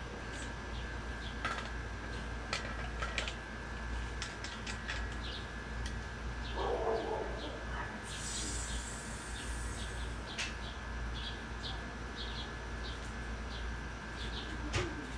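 Small birds chirping in short, repeated notes over a steady low hum, with a brief hiss about eight seconds in.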